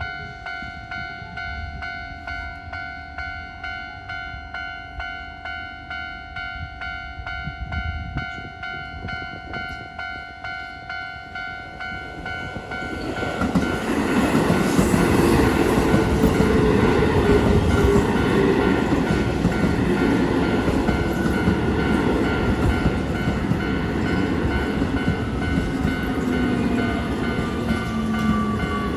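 Japanese level-crossing warning bell ringing in a steady, even clang, about two strokes a second. About 13 seconds in, a Keio Line electric train arrives and passes over the crossing, its wheels and running noise much louder and covering the bell, with a whine that slowly falls in pitch near the end.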